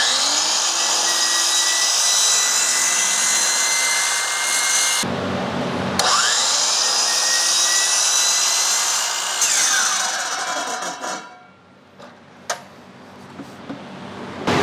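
DeWalt miter saw spinning up and cutting through a white composite post sleeve, in two runs with a short break about five seconds in. The blade's whine falls as it spins down after the second cut, and a single sharp click comes near the end.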